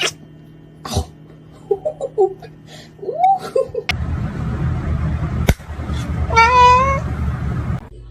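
Domestic cat meowing: a few short, soft calls in the first half, then one loud, drawn-out meow over a low noise near the end. A few sharp clicks stand out, the first right at the start and another about a second in.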